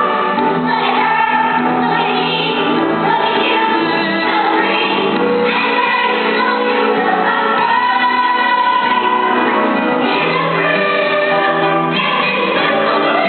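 A stage-musical chorus: many voices singing a song together, held notes shifting from chord to chord.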